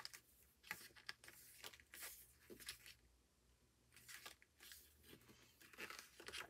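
Paper pages of an album photo book flipped through quickly by hand: faint, irregular papery swishes and flicks, with a brief pause about halfway through.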